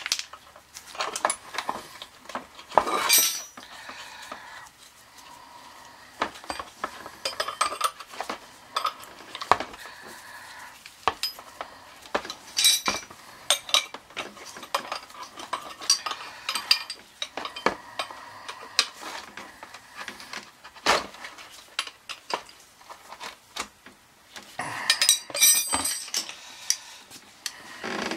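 Irregular metallic clinks and scrapes from an oil-burner fuel pump and the tool worked against it while the pump is wiped clean with a rag, with a dense cluster of clatter about 3 seconds in and another near the end.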